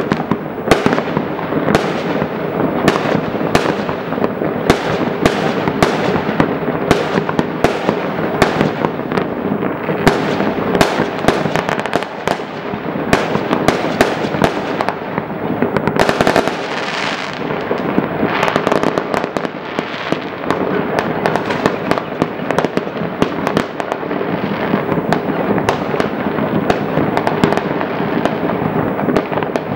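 Many fireworks and firecrackers going off at once, a dense and unbroken barrage of bangs, pops and crackles with no pause.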